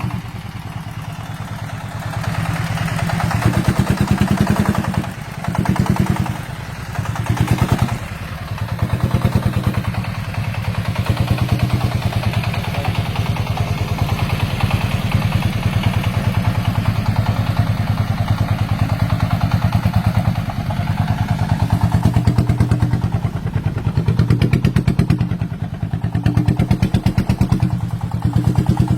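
Diesel engine of a homemade farm vehicle running under way, a steady rapid chugging. Its level dips and surges a few times early on as the throttle changes, then it runs evenly.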